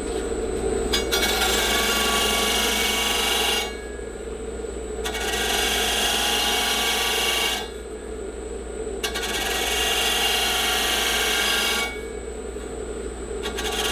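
Edge of a steel wheel rim held against the spinning sanding wheel of a Burr King Model 1000 bench sander. There are three sanding passes, each a loud hiss of about three seconds, over the machine's steady motor hum. The sharp, dinged edges of the wheel are being smoothed before paint.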